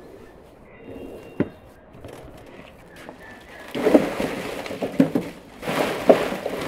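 Dry pine branches rustling and crackling and pinecones tumbling out of a sack into a metal barbecue grill, loud from about four seconds in, with several sharp crunches. Before that it is quieter, with one sharp click.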